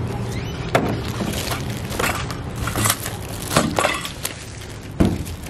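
Clear plastic bag crinkling and crackling in irregular short spells as a packaged console lid is handled and slid out of it.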